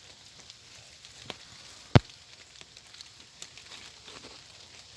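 Small campfire of wet twigs and bark being lit, giving faint scattered crackles and ticks, with one sharp click about two seconds in.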